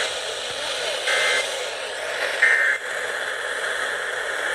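Emergency Alert System end-of-message data tones received over the radio: three short two-tone warbling bursts about a second and a quarter apart over steady radio hiss, marking the end of the alert.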